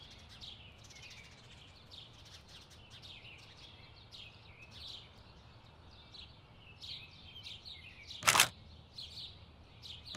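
Birds chirping, many short high calls one after another over a faint low background rumble. About eight seconds in comes a short, sharp burst of noise, the loudest sound.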